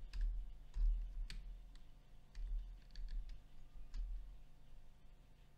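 Computer keyboard being typed on: a scatter of light key clicks over the first four seconds or so, thinning out near the end.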